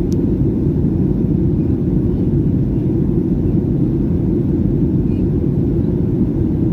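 Steady low rumble of an airliner's engines and rushing air, heard inside the passenger cabin.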